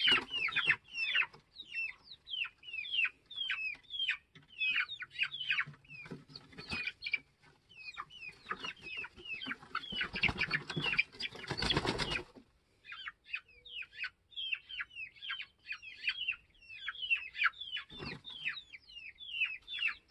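A flock of chickens peeping and chattering nonstop: many short, high calls that slide downward, overlapping one another, as the birds crowd the coop ramp and doorway to go in for the night. About ten seconds in there is a two-second burst of rustling, and a single knock near the end.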